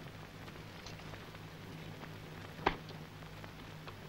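Quiet background of an old film soundtrack: a steady low hum with faint crackle and a few small ticks. A single sharp knock about two and a half seconds in is the loudest sound.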